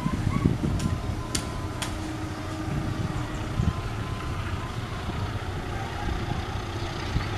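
Distant diesel locomotive running as it approaches at low speed: a steady low engine rumble, with two sharp clicks a little over a second in.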